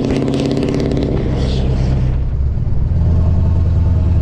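Scania S650's V8 diesel running under way, a loud exhaust note with road and tyre noise as the truck drives past. About two seconds in, this gives way to a steady low engine drone heard from inside the cab.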